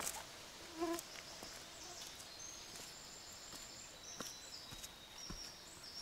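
A faint whine of swarming mosquitoes, with thin high tones coming and going through the second half and a few soft ticks.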